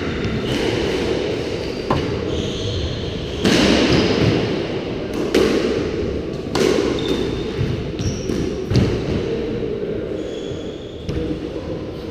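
Squash ball knocks and bounces every second or two, with short high squeaks of court shoes on the wooden floor in between.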